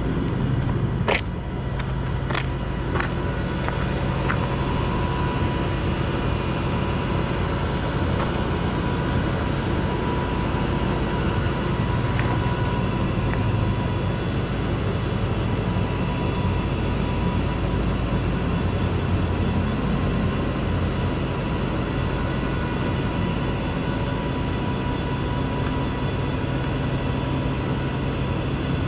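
Rollback tow truck's engine running at a steady idle with a faint steady whine above it, and a few sharp clicks in the first few seconds.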